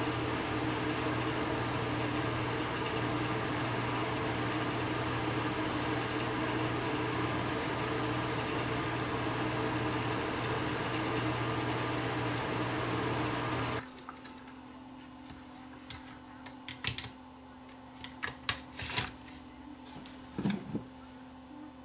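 A steady mechanical hum with several constant tones, like a running fan, cuts off abruptly about 14 seconds in. After that, light clicks and taps of hands handling a circuit board and a metal chassis.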